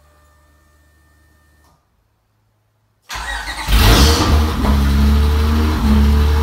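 Honda J32 3.2-litre V6 firing up for the first time after an engine swap: after a faint hum, the starter cranks about three seconds in, the engine catches and flares up in revs, then settles into a loud, steady idle.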